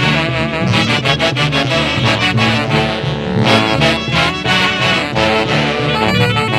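Orquesta típica band of wind instruments playing a Santiago dance tune over a steady, regular beat.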